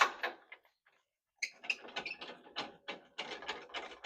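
Metal parts handled by hand: one sharp clack, then after a short pause a run of quick, irregular clicks and rattles, as a metal shaft is worked at a hole that it is too big for.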